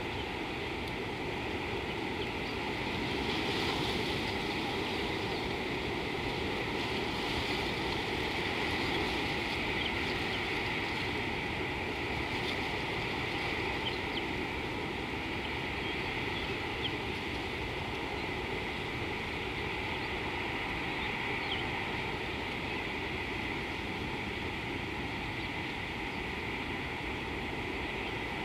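Steady natural outdoor ambience: an even rushing hiss with a constant higher band, and a few faint short high chirps here and there.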